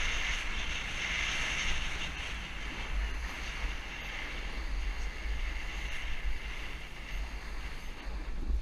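Wind buffeting the microphone of a camera worn by a snowboarder riding fast, over the steady hiss of the snowboard sliding and carving on firm snow. The hiss is strongest in the first two seconds.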